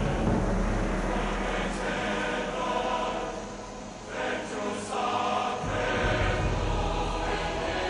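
Choral music with sustained sung chords, over a low rumble.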